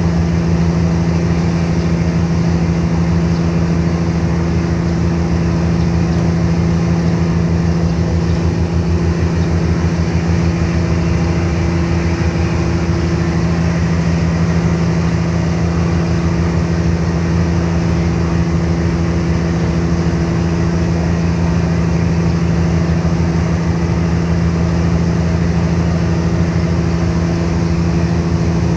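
Car ferry's engines running steadily underway: a loud, unbroken drone with a deep hum and a fast low throb.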